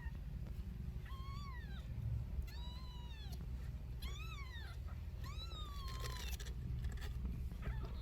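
Kitten meowing: four high-pitched mews, each rising and then falling, about one every second and a half. A short scratchy noise comes about six seconds in.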